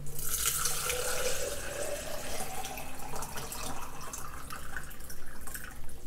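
Water poured in a steady stream into a tall clear plastic cylinder, filling it.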